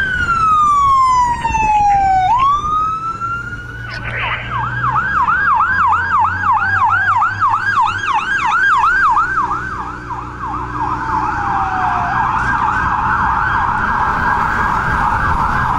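Fire apparatus sirens sounding as the trucks pass: a wail falls and climbs again, then switches to a fast yelp of two or three sweeps a second. About ten seconds in, a second, faster yelp takes over while the other winds down, over a low truck engine rumble.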